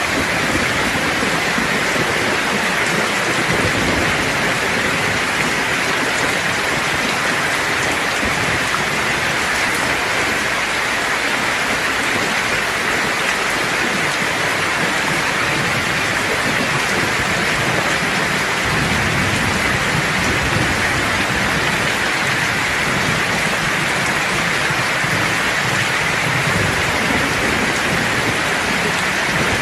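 Steady, heavy rain hissing without a break, with low thunder rumbling underneath that swells up about two-thirds of the way through.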